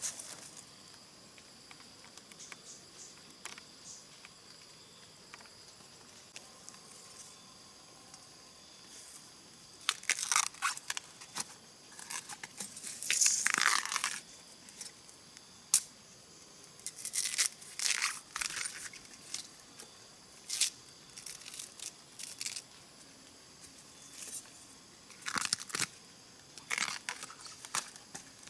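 Fibrous plant sheaths being torn and crackled by hand, most likely husks stripped off bamboo shoots. The sound comes in several short bursts of tearing and crackling with quiet stretches between, the loudest about halfway through.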